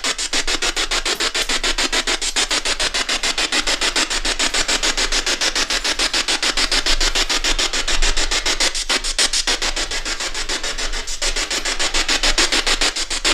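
Ghost box (spirit box) sweeping through radio stations: a continuous rasping static hiss chopped into rapid, even pulses as the scan steps from channel to channel.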